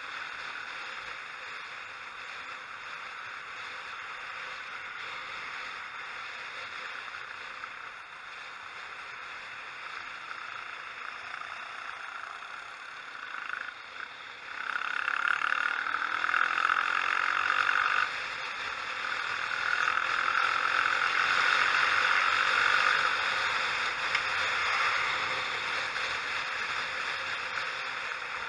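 Wind rush and engine noise of a motorcycle being ridden on the road, picked up by a helmet-mounted camera. It grows much louder about halfway through, dips briefly, rises again, and eases off near the end.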